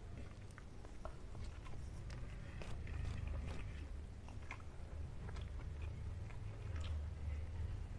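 Fingers wiping and scraping the last curry off a nearly empty plate, with scattered small clicks and chewing mouth sounds, over a steady low hum.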